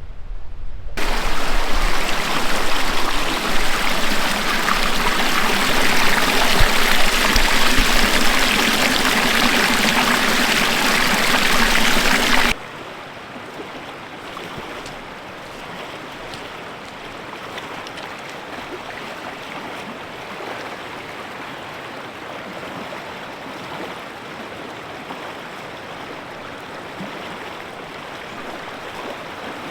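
Rushing river water, loud for the first twelve seconds or so, then cutting off suddenly to a quieter, steady rush for the rest.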